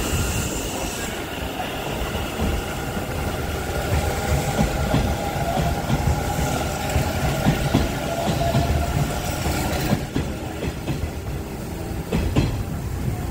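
Hanshin Railway local electric train pulling out of the station and running past. Rumble and steady motor tones carry on until about ten seconds in, then fade as the last car goes by. A few sharp wheel clacks on the rail joints come near the end.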